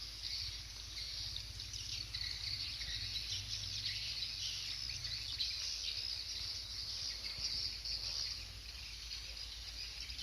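Many swiftlets twittering together: a dense, continuous chatter of short, high chirps.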